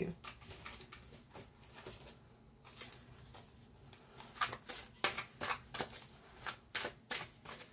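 Tarot cards being shuffled by hand off the table: a run of short card clicks and snaps, sparse at first and coming thick and fast in the second half.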